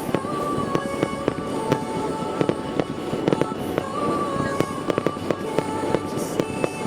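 Fireworks going off in rapid succession, many sharp bangs and crackles a second, with music playing underneath in held melody notes.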